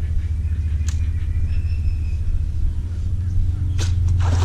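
Steady low rumble throughout, with a sharp click about a second in and a brief clatter near the end.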